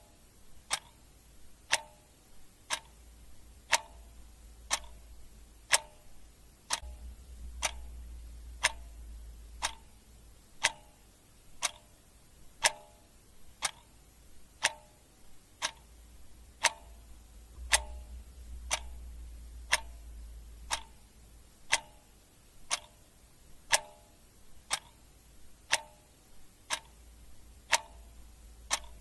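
Clock ticking steadily, about one tick a second, over a faint low rumble that swells twice.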